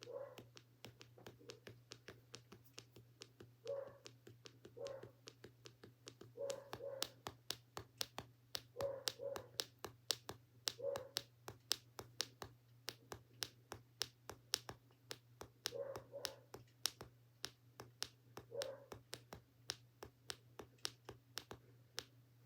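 Feet making a rapid series of sharp clicks, two or three a second and uneven, with short paired squeaky sounds every few seconds over a low steady hum.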